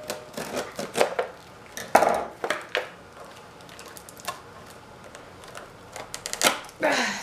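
Scissors cutting through the tape on a small cardboard box, then the cardboard being handled and pried open: irregular snips, scrapes and taps, with a louder cluster of scraping near the end.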